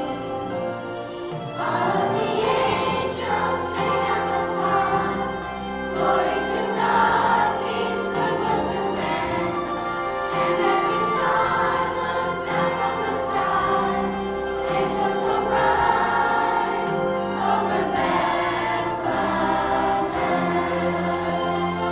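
Children's choir singing a song together over a steady instrumental accompaniment.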